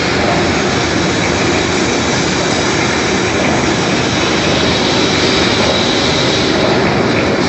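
Electric bone crusher machine running, a steady loud mechanical din with no break.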